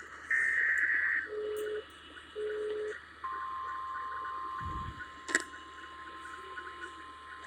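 Weather radio alert tones: a buzzy, data-like burst about a second long and two short low beeps. Then, about three seconds in, the steady 1050 Hz NOAA Weather Radio warning alarm tone starts; it drops in level a little before five seconds and continues. A sharp click comes about five seconds in.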